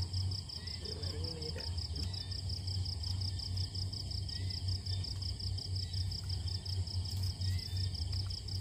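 Crickets chirping in a steady, rapid, evenly pulsed trill, over a low steady hum.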